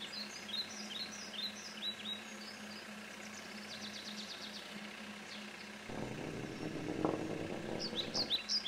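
Cartoon meadow ambience: small birds chirping in short falling notes, with a quick trill in the middle, over a faint steady hum. About six seconds in, the low rolling noise of a cartoon toy bus driving joins and grows louder.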